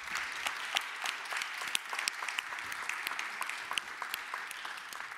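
Audience applauding: many hands clapping together, fading near the end.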